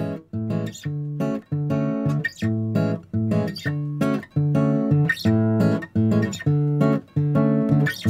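Background music: a bossa nova tune on acoustic guitar, with short plucked chords in a steady rhythm.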